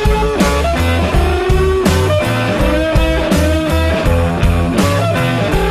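Background rock music: a guitar playing bending notes over a steady bass and drum beat.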